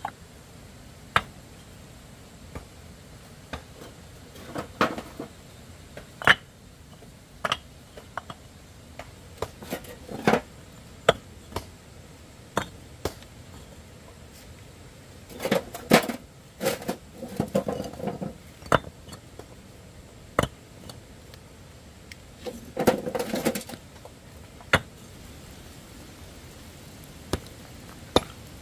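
Irregular sharp knocks and clinks of hard objects being handled, about one every second or two, with two busier clattering spells about halfway through and again some eight seconds later.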